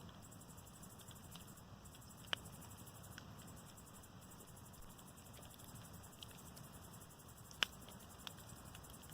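Wood bonfire of scrap lumber burning with a low, steady rush and occasional sharp crackles. A loud pop comes about two seconds in and the loudest about seven and a half seconds in.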